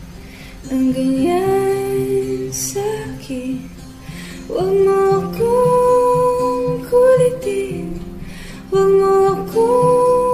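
A Tagalog pop song: a woman singing long, held notes that slide between pitches, over strummed acoustic guitar.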